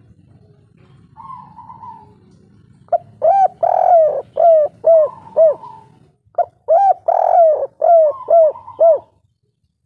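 Spotted dove (tekukur) cooing the 'kuk 3' song. A faint, higher coo comes about a second in, then two loud phrases of about six arching coos each, the first starting about three seconds in.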